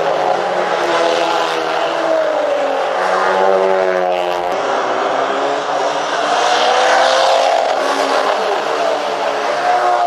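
Several race car engines passing at speed one after another, engine pitch rising and falling as each car goes by and shifts, with overlapping engines.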